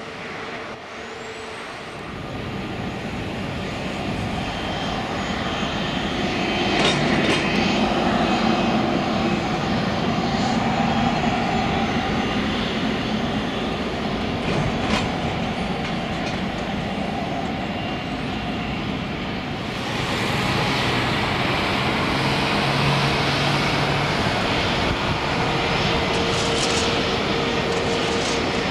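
Jet airliner engines at an airport: a broad roar that swells over the first few seconds as an Airbus A320neo accelerates on its takeoff roll. The roar steps up again about two-thirds of the way in, with a steady whine in the last few seconds.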